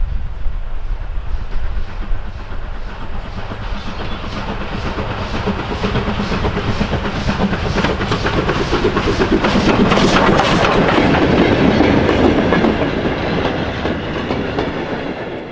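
Steam tank locomotive approaching and passing close by, its exhaust beating evenly at about two chuffs a second and growing louder to a peak about ten seconds in. Then the carriages rumble and click past on the rails, and the sound fades near the end.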